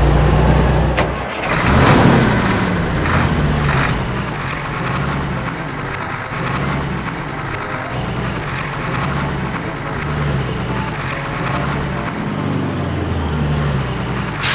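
A motor vehicle's engine running steadily, with a louder noisy swell about two seconds in.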